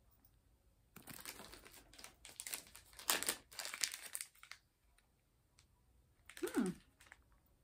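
Small zip-top plastic bag crinkling and rustling as a wax melt sample is opened and taken out, in scattered crackles for a few seconds. Near the end, a brief falling vocal sound.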